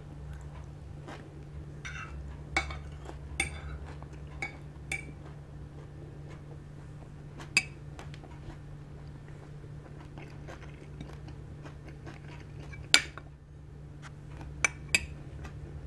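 Metal fork and spoon clinking and scraping against ceramic plates while eating: several scattered sharp clinks, the loudest late on and a quick pair near the end, with soft chewing between. A steady low hum runs underneath.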